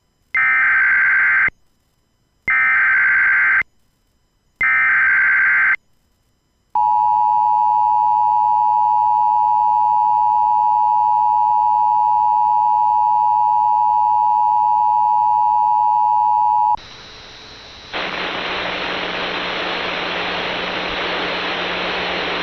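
Emergency Alert System activation from a Sage ENDEC 1822: three bursts of screeching SAME header data tones, each about a second long and a second apart. Then comes the steady two-tone attention signal, held for about ten seconds before it cuts off. A steady hiss of static fills the last few seconds.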